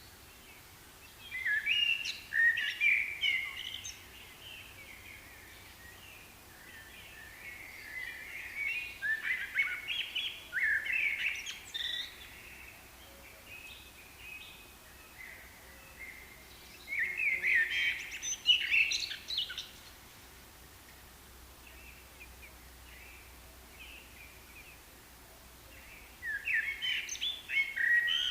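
A songbird singing in bursts of quick, varied high notes, each phrase lasting two to four seconds, with pauses of several seconds between them, over a faint steady background hum.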